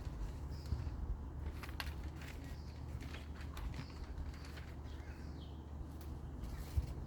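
Birds chirping now and then over a steady low rumble, with a few sharp clicks about two seconds in.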